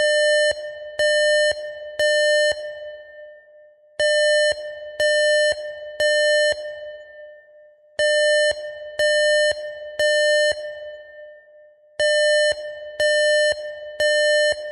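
Electronic warning-alarm sound effect: four groups of three identical half-second beeps about a second apart, a new group every four seconds, each beep trailing off in a fading echo.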